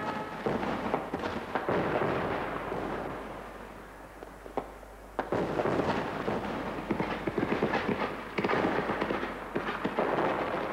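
Fireworks crackling and popping in dense, rapid volleys. They thin out for a couple of seconds in the middle, then come back with a sharp bang and more crackling.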